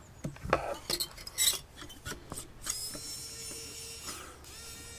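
Light clicks and taps of a screwdriver bit being seated on a small screw, then about two and a half seconds in the Xiaomi WowStick 1F+ electric precision screwdriver's motor runs with a steady high whine, breaks off briefly near the end and starts again.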